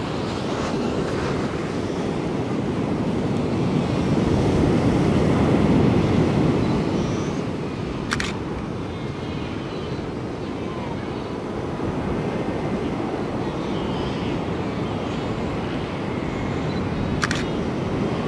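Ocean surf breaking and washing on the beach, with wind on the microphone: a steady low rush that swells about four to six seconds in. A sharp click comes about eight seconds in and another near the end.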